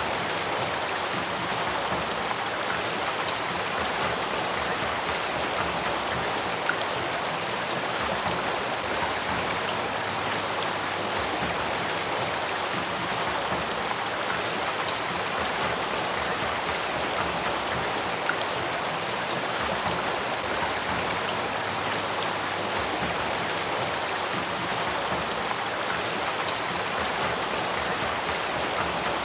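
Headwater stream of the Sacramento River flowing steadily, an even rush of running water.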